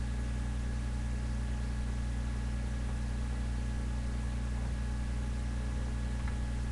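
Steady low electrical hum with a faint high-pitched whine above it, unchanging throughout.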